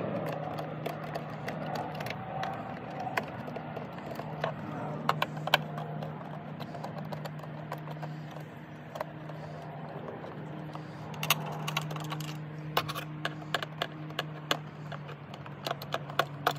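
Scattered clicks and light taps as a Torx screwdriver works screws out of a plastic air inlet duct, with a cluster of clicks about five seconds in and another from about eleven to fifteen seconds in. A steady low hum runs underneath.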